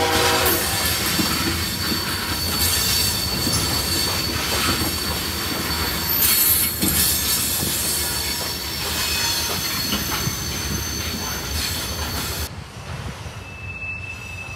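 Freight train of open-top hopper cars rolling past, steel wheels on rail with a thin, steady high-pitched wheel squeal over the rumble; a locomotive horn's last note cuts off about half a second in. Near the end the sound drops to a quieter, more distant train.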